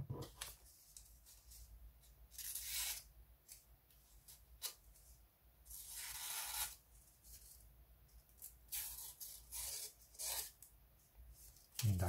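The sharp knife blade of a Leatherman Free T4 multi-tool slicing through paper: several soft rasping cuts, each under a second, with faint clicks of handling between them.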